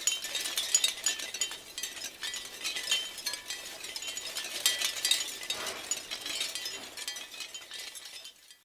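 Shell wind chimes clattering together in gusts: dense, irregular high clicks and clinks that swell and ease, fading out near the end.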